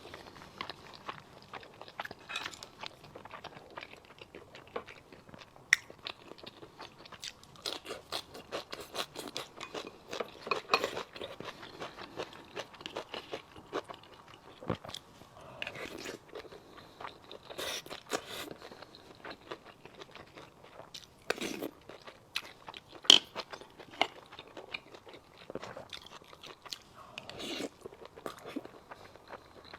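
A person chewing and eating braised pork rice, with many short sharp clicks scattered through; the loudest click comes about 23 seconds in.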